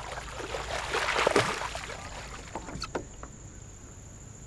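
A hooked bass splashing at the surface as it is reeled up to the boat, the splashing loudest about a second in. A few sharp taps follow near three seconds in as the fish is lifted out of the water.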